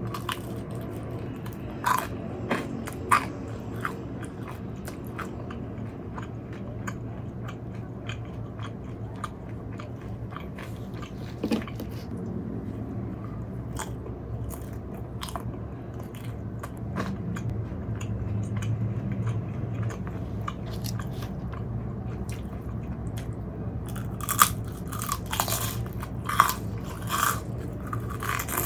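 A person biting and chewing crunchy fried chicken and cheese balls close to the microphone, with scattered crisp crunches and a louder run of bites near the end. A steady low hum runs underneath.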